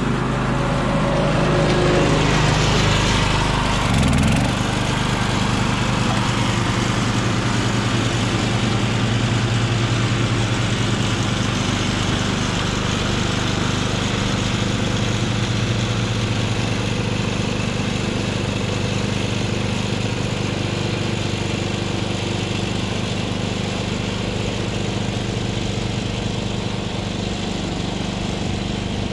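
Husqvarna Rider riding mower's engine running steadily under load as it cuts tall, rough grass and weeds with the deck at maximum height.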